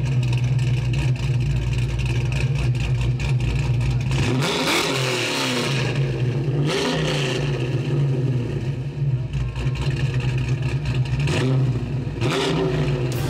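A car engine running steadily and revved up and back down three times: about four seconds in, again around seven seconds, and once more near the end.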